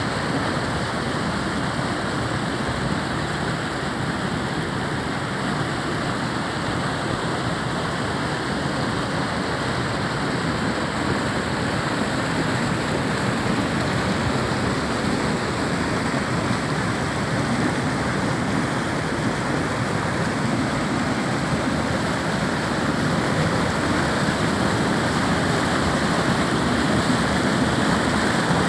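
A small mountain stream rushing and splashing over rocks in little cascades, a steady rush of water that grows a little louder near the end.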